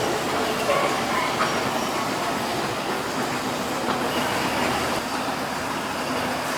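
A Keihan electric train moving through the station.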